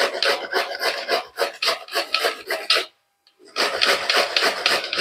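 A peeled bottle gourd being grated on a hand grater in quick repeated strokes, about four a second. The strokes pause briefly a little after the middle, then start again.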